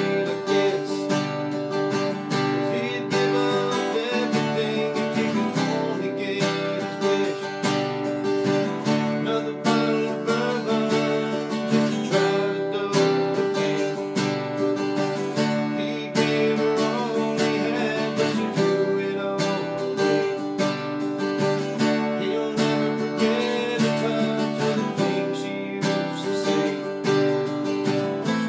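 Acoustic guitar strummed in a steady rhythm, playing chords for an original song.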